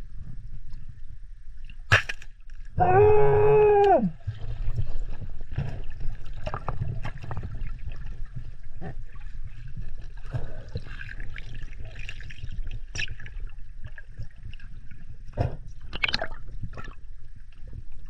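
Water sloshing and gurgling against an action camera at and just under the sea surface, with a steady low rumble and scattered sharp clicks and knocks. About three seconds in, a short held pitched tone sounds for about a second.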